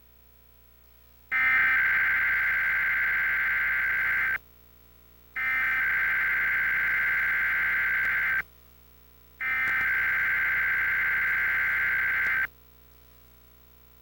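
Emergency Alert System SAME header: three bursts of high-pitched digital data tones, each about three seconds long with about a second of silence between them, starting about a second in. The bursts signal the start of an EAS test broadcast.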